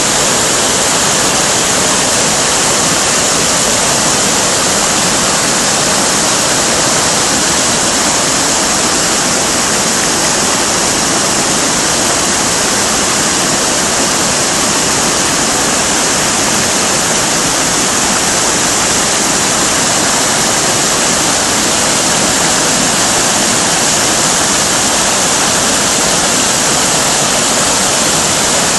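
Waterfall: white water tumbling down over boulders, a steady, loud rushing that does not change.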